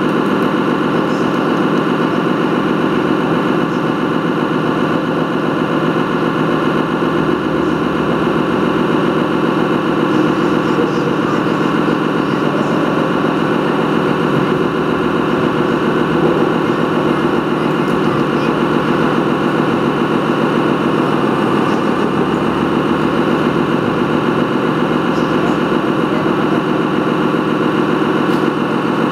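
Steady engine sound of a 1:8 scale radio-controlled model truck carrying the microphone, running evenly with a fine, fast pulse.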